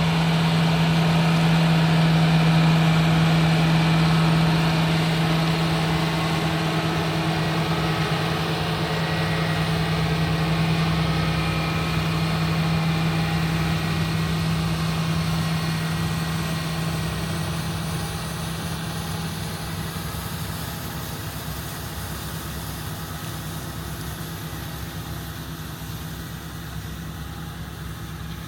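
John Deere 8270R tractor's diesel engine running with a steady low drone, growing gradually fainter over the second half.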